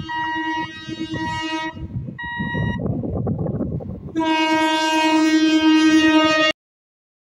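Eastern Railway EMU train's horn sounding several short blasts, a rumble of the approaching train, then one long horn blast about four seconds in that cuts off suddenly into silence.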